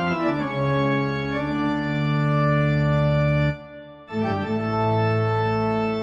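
Comedy sound effect on an organ-like instrument: a pitched tone slides quickly down in steps and settles on a held low note, then stops and plays again about half a second later.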